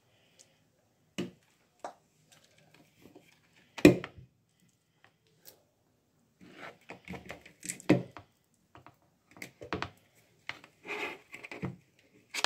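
Spoon scooping margarine into a plastic bowl of flour: a few separate knocks, the loudest about four seconds in, then a busier run of short taps and scrapes in the second half.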